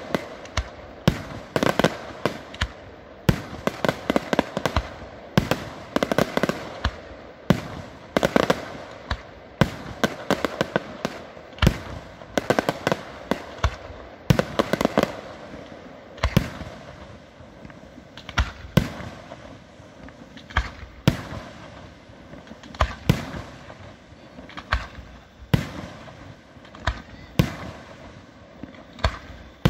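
Aerial firework shells bursting: a quick run of bangs and crackling reports through the first half, then single bursts about every second or two.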